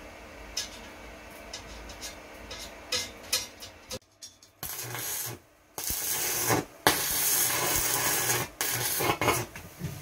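Stick (arc) welder at work: the electrode arc crackles and sizzles in several runs of a second or two each, with short breaks between them, starting a little before halfway in.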